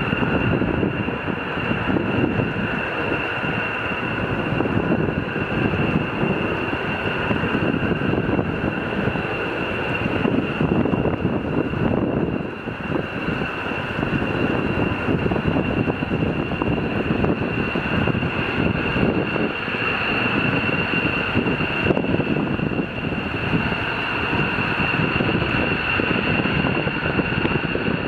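Aircraft engines running at a distance with a steady high whine, under a rushing noise of wind on the microphone.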